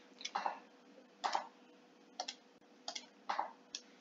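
Six short, sharp clicks at uneven intervals, made while drawing lines on a computer notebook page.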